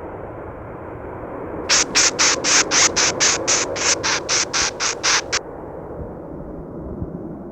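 Spooky ambience sound effect: a steady low rumbling drone, with a quick run of about fourteen sharp, hissing rattle-like pulses, roughly four a second, in the middle that then stop abruptly.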